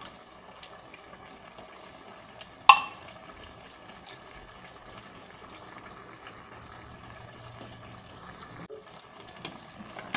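Sardines in tomato sauce being poured from a can into a pot of simmering coconut-milk stew, the liquid bubbling steadily. One sharp knock about three seconds in, with smaller clicks near the end.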